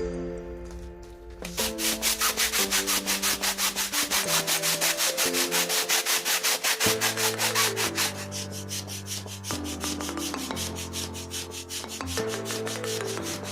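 Background music: a melody of held notes over a fast, even shaker-like beat, loudest in the first half.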